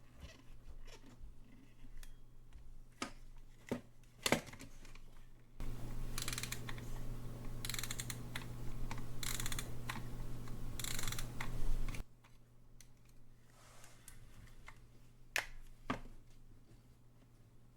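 Small mechanical clicks and taps as a vintage alarm clock is handled and worked during inspection. A louder continuous rasping rattle starts about five seconds in and stops abruptly about six seconds later.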